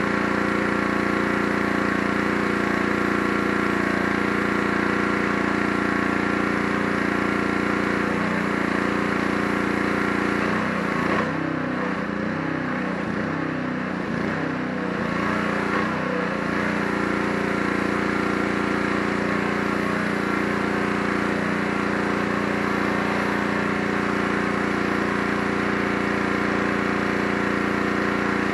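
Gas-engine pressure washer running steadily, with the hiss of the water spray on the deck boards. About halfway through, the engine note goes uneven for a few seconds, then steadies again.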